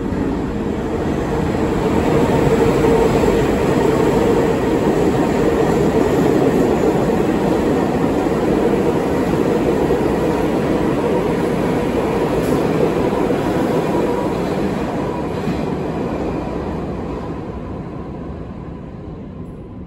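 New York City subway train running through the underground station on the far track without stopping: a steady rumble of wheels on rail that builds over the first few seconds, holds, and fades away over the last few.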